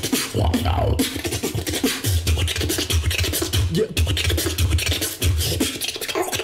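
Beatboxing: a fast run of mouth-made clicks and snare-like hits over deep bass tones that come and go about once a second.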